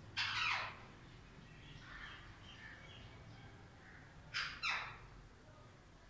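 Rose-ringed parakeets giving a harsh screech that falls steeply in pitch, then soft chattering notes, then two more quick falling screeches a little after four seconds in.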